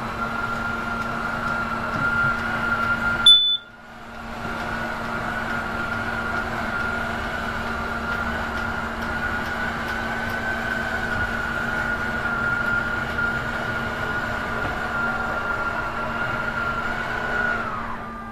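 Electric slide-out motor of a travel trailer running steadily with a whine as it moves the slide-out room, with a click and brief break about three seconds in. Near the end the whine winds down and stops as the room reaches the end of its travel and the motor shuts off on its own.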